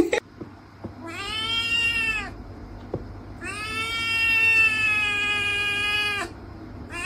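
A kitten meowing: two long, drawn-out meows, the second about a second after the first and about twice as long, each rising slightly in pitch and then dropping at the end.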